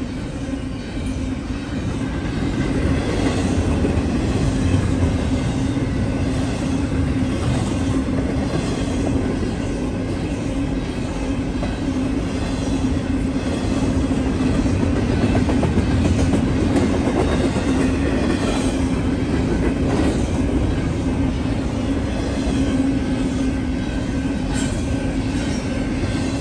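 Double-stack intermodal container train rolling past at speed: a steady rumble and rattle of wheels on the rails, with a constant low hum and occasional sharp clicks.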